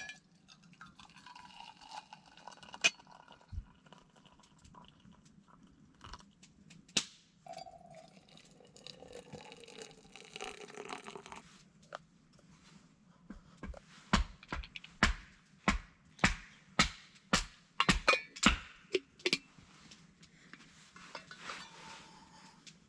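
Cups and utensils clinking as tea is made, then a quick run of sharp cracks and pops, like wood popping in a campfire, over several seconds past the middle.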